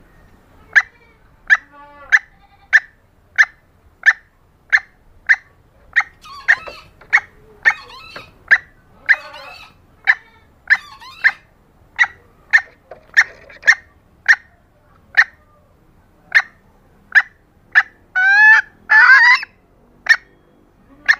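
Red junglefowl hen clucking: a steady run of short, sharp clucks about one and a half a second, with fainter overlapping calls in the middle and two longer, louder squawking calls near the end. This is a hen's call played as a lure to draw in wild junglefowl.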